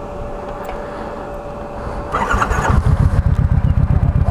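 Motorcycle engine being started about two seconds in, then running with a loud, rapid, even pulsing.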